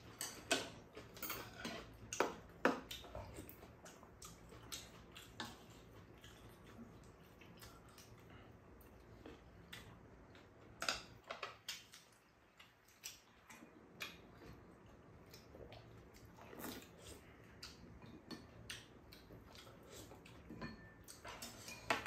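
Chopsticks and spoons clicking and tapping against ceramic bowls and a metal pan while two people eat, in irregular light clicks, with a few louder taps in the first few seconds.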